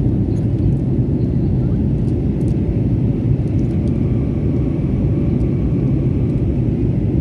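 Airliner in flight: a steady low rumble of engine and airflow noise.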